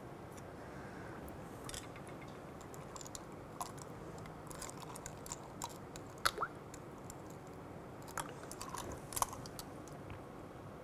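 Ice cubes tipped by hand from a plastic bottle into a metal calorimeter cup, giving scattered faint clicks and knocks, the sharpest about six and nine seconds in.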